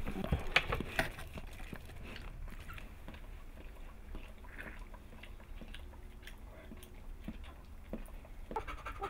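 Bernese mountain dog chewing and licking: wet mouth clicks and crunching, loudest in the first second or so, then fainter and scattered.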